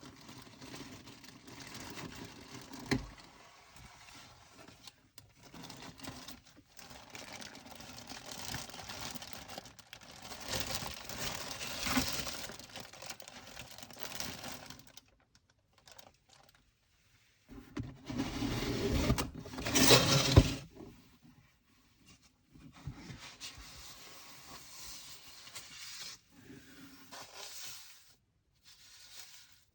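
Unboxing sounds as the packaging and fan parts are handled: rustling, crinkling and scraping in bouts with short pauses. There is a sharp knock about three seconds in, and a louder burst of rustling about two-thirds of the way through.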